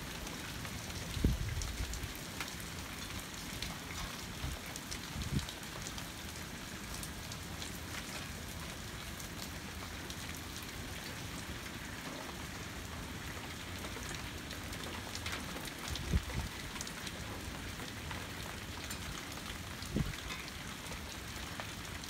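Steady rain falling in a thunderstorm, an even hiss, broken by four brief low thumps.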